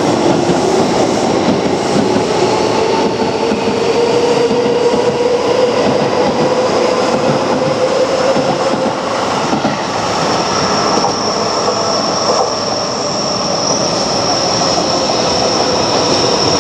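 Keio Line electric train running, its motors giving a whine that rises slowly in pitch as it gathers speed over loud, steady running noise. About ten seconds in, a high steady squeal comes in.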